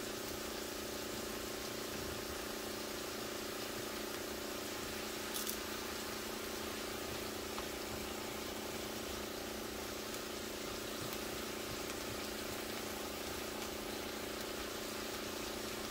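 Mushrooms, onion and scallions sizzling steadily in a frying pan as they are stirred with tongs, over a steady hum, with a single click about five seconds in.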